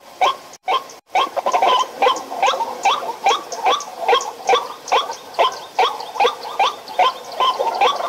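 White-breasted waterhen giving a long run of croaking calls, about two or three a second, each call dropping in pitch.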